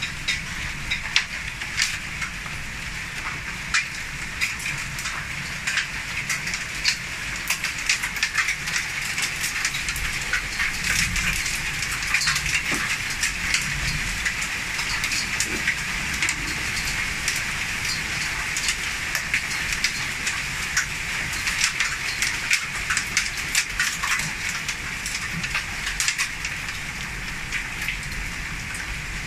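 Heavy rain falling steadily: an even hiss scattered with many sharp ticks of drops striking nearby surfaces.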